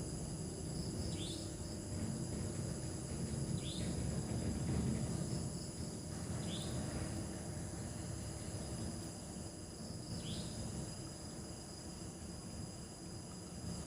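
A night chorus of crickets and other insects trilling steadily and high. A short falling chirp comes about four times, a few seconds apart, over a low, uneven background rumble.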